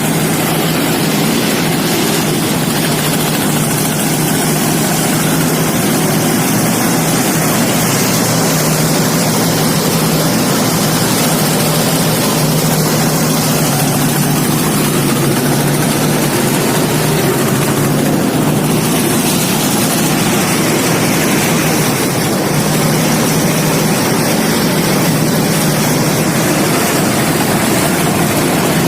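Engine-driven rice threshing machine (power thresher, 'dos') running steadily: a loud, even mechanical drone with a constant low hum.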